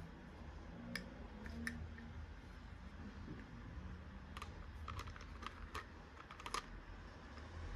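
Light, sharp clicks and taps of small hard objects being handled: a few spaced ones in the first two seconds, then a quick run of them in the second half.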